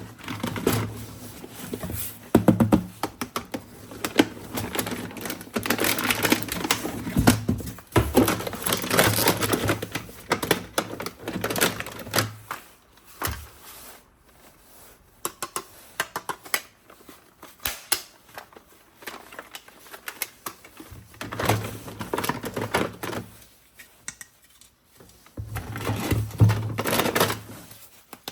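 Handling noise from unboxing: plastic parts and packaging being handled, with many small clicks, taps and rustles, quieter for a stretch in the middle.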